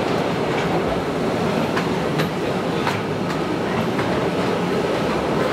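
Postojna Cave's open-carriage tourist train running steadily along its narrow-gauge track, a continuous rumble of wheels on rails with several sharp clicks along the way.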